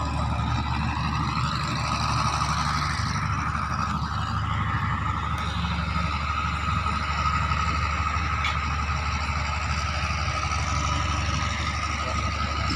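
A heavy diesel engine running steadily at idle, with a steady high whine above it.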